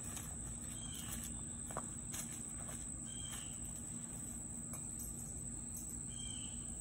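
Steady high-pitched insect buzz, with a few short faint chirps about one, three and six seconds in.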